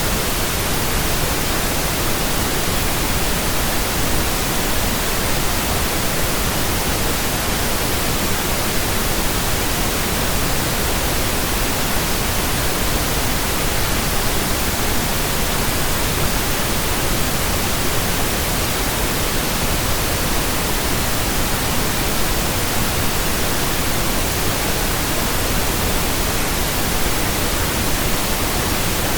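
Steady synthetic pink noise: an even hiss with no tones or changes in it.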